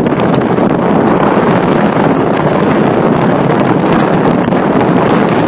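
Wind rushing over the camera's microphone: a loud, steady roar with frequent crackles.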